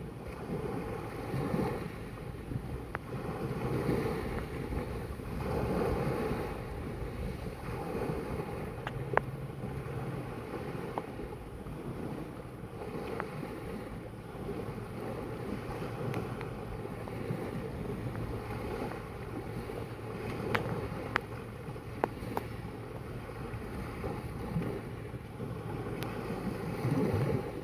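Sea waves washing in, swelling every couple of seconds, with wind buffeting the microphone. A few sharp clicks stand out, twice close together about two-thirds of the way through.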